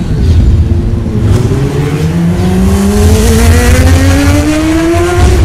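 Vehicle engine accelerating hard, its pitch climbing steadily for about five seconds over a deep rumble, then breaking off near the end.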